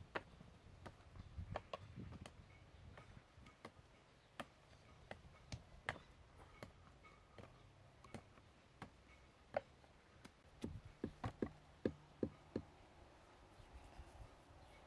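Faint, irregular sharp taps and clicks, with a quicker run of knocks about two-thirds of the way through.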